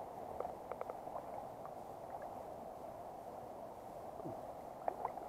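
Shallow river running over stones with a steady gurgle, and a few small splashes and drips from hands moving in the water, about half a second in and again near the end.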